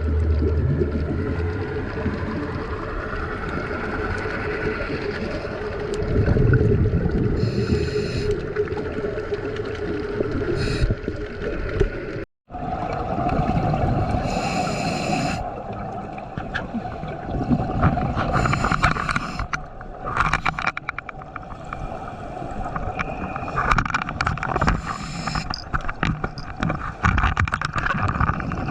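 Underwater recording: a steady droning hum with bursts of bubbling every few seconds, a scuba diver's regulator exhalations. About 12 seconds in the sound cuts out for a moment and returns with the hum at a higher pitch.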